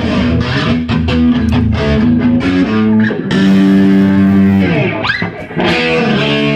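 Guitar being plucked: a quick run of separate notes, then a note held for over a second that slides down in pitch.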